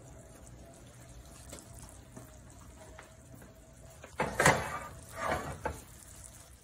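Glass baking dish set down on a gas cooktop's metal grates, a few loud clunks and clatters starting about four seconds in, over a faint steady hum.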